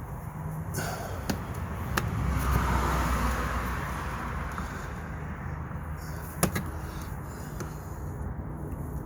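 Scattered sharp clicks and knocks of hard plastic as the dashboard headlight switch and its retaining clips are worked at, over a steady low outdoor rumble. A swell of noise rises and fades about two to four seconds in.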